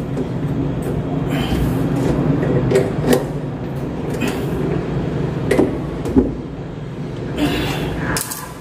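A flexible water hose's coupling nut being threaded and hand-tightened onto a chrome angle valve under a sink: scattered light clicks and scrapes of metal fittings, over a steady low hum.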